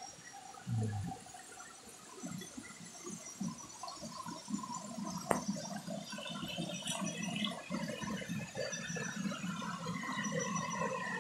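Running water, a steady trickle that grows a little louder partway through, with a dull thump about a second in and one sharp click about five seconds in.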